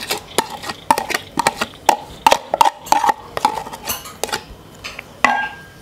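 A metal spoon scraping and tapping against a plastic container as chopped onion is scooped out into a plastic bowl: many quick, irregular clicks and scrapes.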